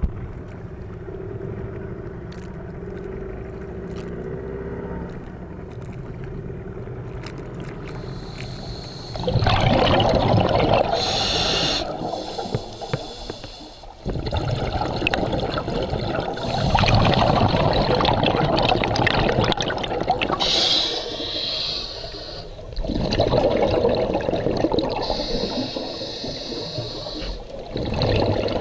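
Underwater sound of a scuba diver breathing through a regulator: the hiss of each breath and the gurgle of exhaled bubbles, coming in loud bursts a few seconds long from about nine seconds in. Before that there is a quieter steady water rumble.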